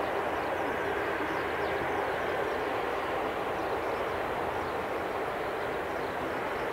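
Twin jet engines of an Airbus A330-300 airliner running at low taxi power, a steady even rushing hum that neither rises nor falls.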